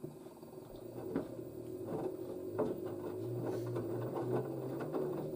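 LG DirectDrive washer-dryer drum starting to turn under its direct-drive motor, a steady whine that grows louder, with irregular knocks as the wet towels shift about in the drum. The machine is struggling to balance the load of towels before its spin.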